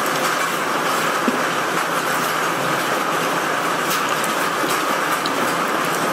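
Steady rush of storm wind and rain, with a few light ticks of drops striking the window glass.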